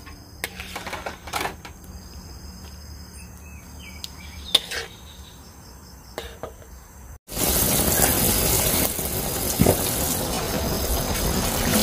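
A metal ladle clinks and scrapes now and then against a wok of simmering buttermilk sauce. About seven seconds in, a loud, steady hiss begins: the sauce boiling hard, foaming and bubbling.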